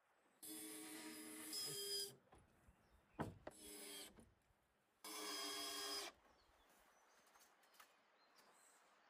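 Cordless drill-driver running in three short bursts of a second or two each, driving into the wooden slats of a rhombus frame, with a sharp knock between the first two bursts.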